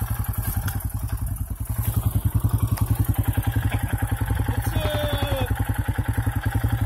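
Arctic Cat 450 XC quad's single-cylinder four-stroke engine idling with a fast, even pulsing beat, which grows louder about two seconds in.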